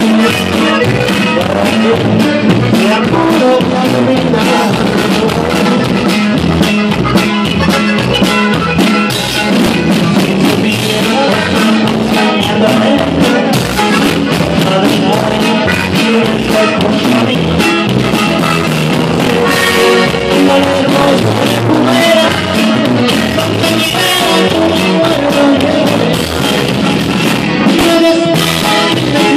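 Live norteño music: a button accordion carries the melody over a drum kit with a steady beat, and a male voice sings.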